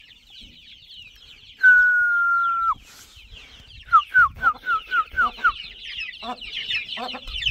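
A flock of young chickens cheeping continuously, with many high, overlapping peeps. A loud, steady whistle-like note lasts about a second, about two seconds in. Then comes a quick run of about seven short falling notes, and low clucks start in the last second or so.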